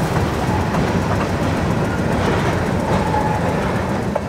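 Grain train of covered hopper cars rolling steadily past, its wheels rumbling and clattering on the rails, with a brief faint high-pitched squeal about three seconds in.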